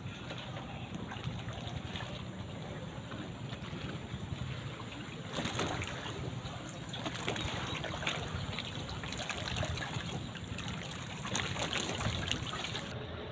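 Seawater lapping and splashing against a concrete jetty, a steady wash with several louder splashes in the second half.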